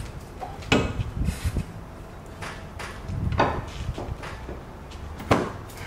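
Hand tools and parts clanking against the front hub and suspension knuckle: several separate knocks, the sharpest about a second in and near the end.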